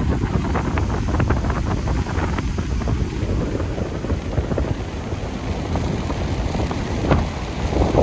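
Strong wind buffeting the microphone over the steady wash of rough surf breaking on the shore, the surf swelling louder near the end.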